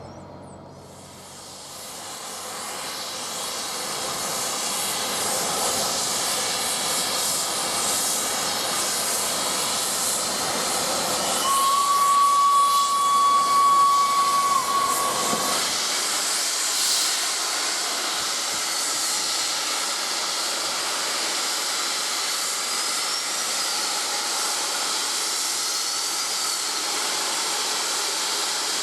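Steam locomotive (Peppercorn A1 4-6-2 Tornado) blowing off steam, a loud steady hiss that builds up over the first couple of seconds. Near the middle, a single steady whistle note sounds for about four seconds over the hiss.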